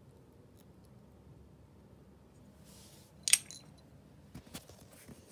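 A hard plastic toy brick clacking onto a laminate floor: one sharp clack a little past halfway, then a few lighter taps.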